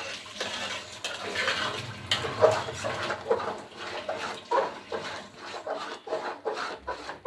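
A metal spoon stirring and scraping wet rice and lentils in an aluminium pot, a run of irregular scrapes and squelches. The khichuri is nearly done, its water almost cooked off, and it is kept moving so it does not stick to the bottom.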